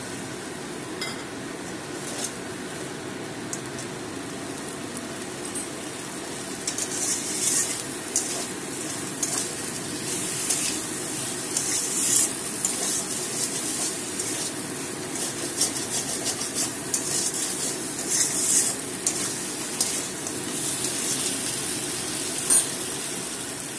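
Metal slotted spatula scraping and stirring prawns in spice paste around a metal kadai over a steady sizzle of frying; the scraping strokes come thick and irregular from about six seconds in. This is the masala being sautéed (kosha) with the prawns.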